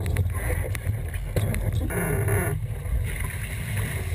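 Wind buffeting the microphone with a heavy low rumble as a Sunfish sailboat's hull rushes through choppy water, with scattered knocks and a burst of splashing spray about two seconds in.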